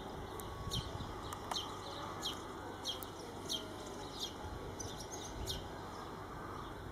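A small bird calling with short, high chirps that each fall in pitch, repeated about once a second, over a faint low background rumble.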